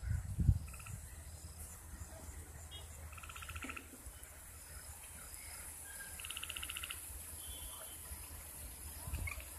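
Frogs calling from a marshy wetland: two short runs of rapid, evenly pulsed croaks, one about three seconds in and one about six seconds in, with a few brief chirps. Under them is a steady high insect hiss and a low rumble, and a low thump near the start is the loudest moment.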